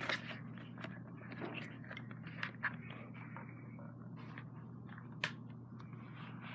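Quiet handling of a plastic voice-changer mask: a few scattered soft clicks and rustles over a faint hum.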